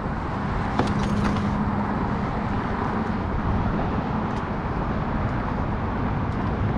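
Steady outdoor background noise, with a faint low hum for about two seconds near the start and a single light click.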